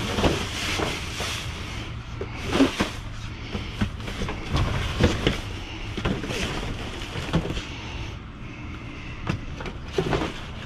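Rummaging in a dumpster: cardboard and plastic bags rustling and scraping, with irregular sharp clacks from a reach grabber poking through the trash, over a steady low hum.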